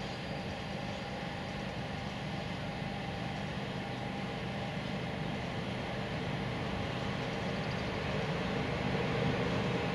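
Electric locomotive hauling a freight train of tank wagons as it approaches: a steady hum and rumble that grows a little louder near the end.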